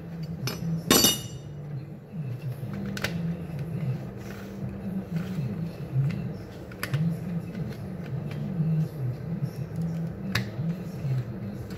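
Drill parts and tools handled on a workbench: a sharp metallic clink about a second in, then a few lighter clicks and knocks as the motor and plastic housing of an electric drill are handled, over a steady low background hum.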